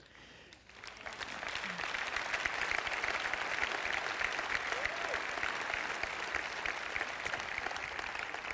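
Audience applauding: the clapping builds over the first second or two and then holds steady.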